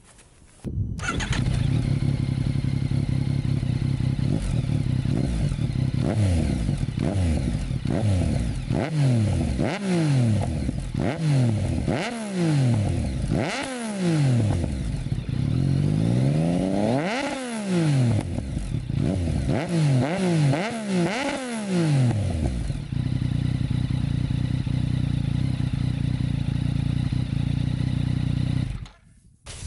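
Yamaha MT-09's inline three-cylinder engine through an Akrapovic Racing Line full titanium exhaust, started about a second in and idling, then revved with about ten throttle blips that rise and fall in pitch, the biggest about two-thirds of the way through, before settling back to a steady idle. The sound cuts off suddenly near the end.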